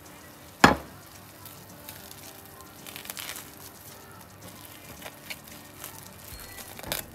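Cooking in a frying pan: a sharp clack of a utensil on the pan just after the start, then scattered crackling of food frying, with a few more light clicks near the end.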